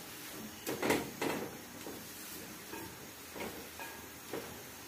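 Tongs stirring and tossing sautéed green beans and carrots in a metal pot: a few soft knocks and scrapes, three close together about a second in, then fainter ones spaced out.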